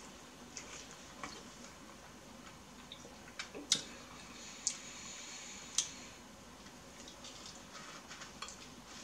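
Close, quiet eating sounds: scattered wet mouth clicks and smacks from biting and sucking the flesh off a pomelo wedge, with a few sharper smacks in the middle.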